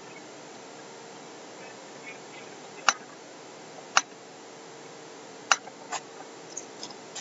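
Computer mouse clicks: three sharp clicks about a second apart, then a softer one, over steady background hiss.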